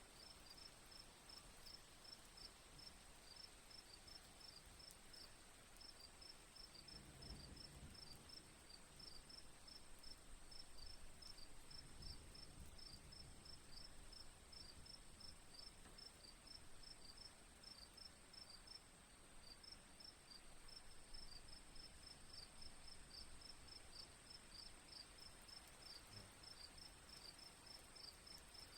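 Faint crickets chirping: a steady high-pitched trill with a row of quick, regular chirps, about three a second, pausing briefly now and then.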